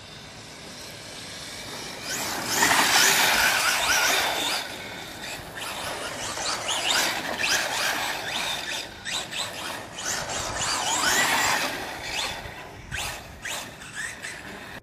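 Brushless-motored RC rally car running on a 3S battery, its electric motor whining up and down in pitch as it accelerates and slides. Its tyres hiss and scrabble over slushy snow and grit. It is loudest a couple of seconds in and again near the end.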